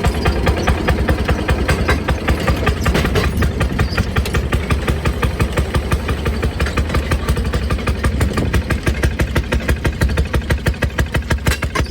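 Rail speeder's small engine running with a rapid, even chug of about five beats a second.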